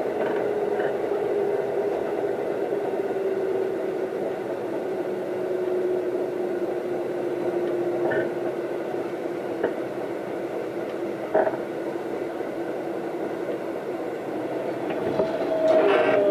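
Keisei AE100 electric train running, heard from inside the car: a steady rumble with a few clicks and a motor whine that slowly falls in pitch. Near the end a louder whine of several tones starts and falls in pitch as the train slows.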